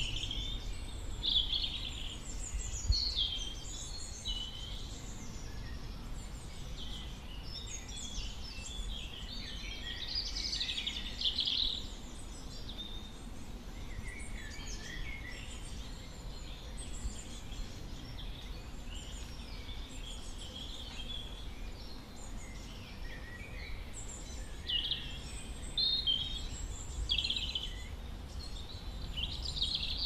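Small woodland birds chirping and calling, many short, varied notes overlapping, over a low background rumble.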